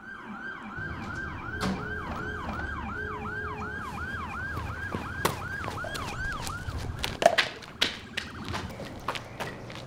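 Emergency-vehicle siren in fast yelp mode, its pitch sweeping up and down about three times a second, which stops about seven seconds in. A few sharp knocks and clacks follow, the loudest just after the siren ends.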